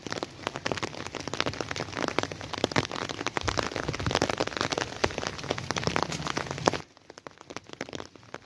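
Steady rain falling, a dense patter of many close drop strikes, which drops abruptly to a much fainter patter about seven seconds in.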